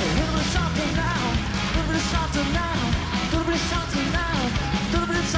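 Rock music with a singing voice over a steady drumbeat.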